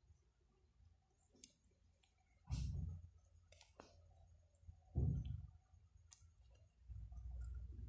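Faint clicks and rustles from syringe-feeding a baby squirrel, with two louder low thuds a couple of seconds apart and a low rumble of handling near the end.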